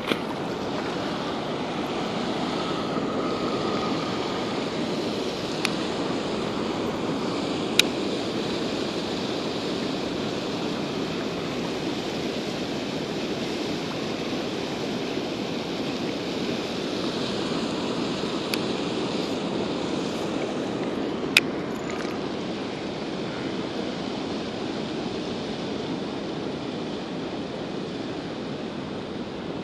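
Steady rush of water pouring over and churning below a spillway, with a few short sharp clicks scattered through it, the loudest two about a third of the way in and about two thirds of the way in.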